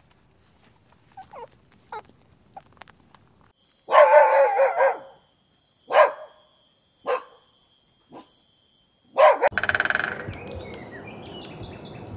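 A dog barking and yelping: faint short yelps, then a loud drawn-out bark about four seconds in, followed by four shorter barks a second or so apart. A steady hiss of background noise takes over near the end.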